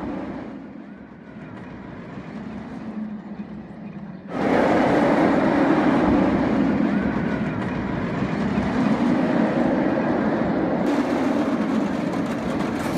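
B&M inverted roller coaster train running along its steel track: a steady rumble of wheels on rail. It jumps suddenly much louder about four seconds in.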